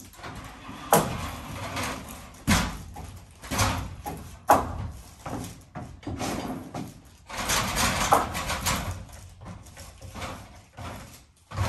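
Irregular knocks and thuds with rustling in between, from handling fiberglass insulation batts and working on an aluminium stepladder. The sharpest knocks fall in the first half, and a longer stretch of rustling comes past the middle.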